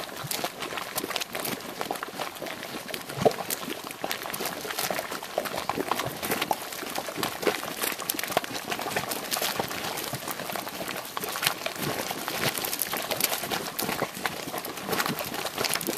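Boiling geothermal mud pool: thick mud bubbling and plopping in irregular pops, with spurts of mud splashing up, and one louder plop about three seconds in.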